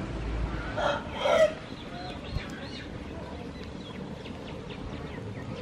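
A chicken calling: one loud call about a second in, then fainter short calls, over steady outdoor background noise.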